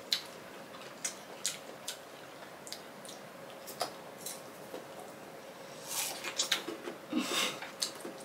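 Close-miked eating sounds: scattered wet lip smacks and mouth clicks as green mango and jackfruit are chewed, thickening into a stretch of denser chewing noise about six seconds in.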